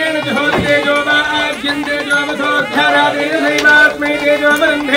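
Singing of a Hindu devotional chant or mantra, with wavering melodic lines over a steady drone.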